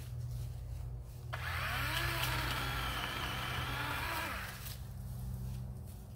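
DeWalt 20V XR cordless chainsaw with a brushless motor, its electric whine rising as the trigger is pulled about a second in. It runs for about three seconds, then winds down.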